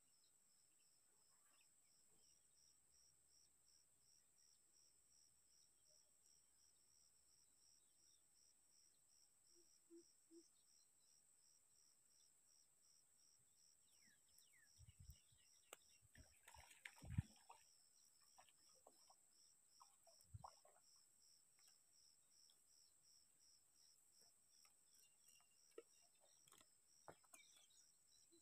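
Faint insects chirping in a steady, fast, even pulsing trill over a high continuous whine, in near silence. A few brief soft knocks and rustles come in the middle.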